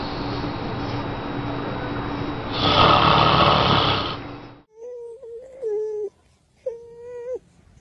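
A sleeping man snoring, with one longer, louder snore about three seconds in. The sound cuts off suddenly, and a baby then cries in two short wavering wails.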